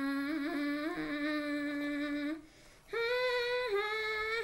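A woman humming in long held notes: one low note that ends about two and a half seconds in, then after a short break a higher note that steps down a little.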